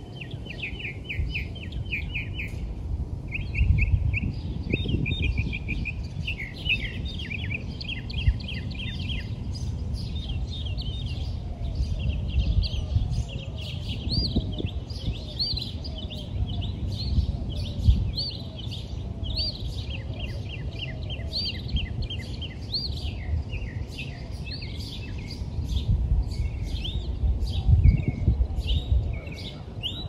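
Songbirds chirping and singing: repeated rapid trilled phrases and short rising whistled notes, one after another, over a low background noise.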